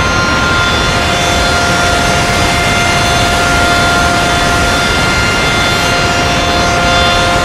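Car wash air dryer blowers running: a loud, steady rush of air with a steady whine from the fans on top.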